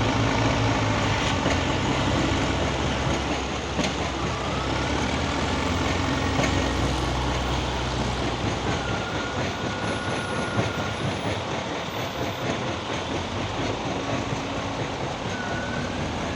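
Heavy diesel construction machinery running with a loud rushing noise. A low engine hum drops away about nine seconds in, and a faint high whine glides up and holds a few times.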